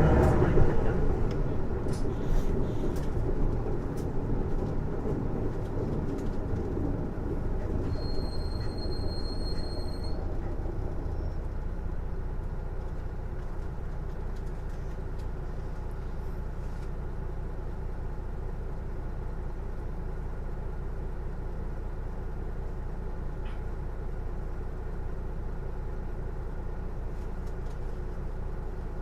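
Isuzu PJ-LV234L1 city bus heard from inside, slowing down: a whine falls in pitch over the first couple of seconds, then settles into a steady low rumble that gets quieter over the first half. The whine is typical of this bus's drivetrain, which the uploader finds oddly louder than the engine. A high, clear beep sounds for about two seconds near the end of the first third.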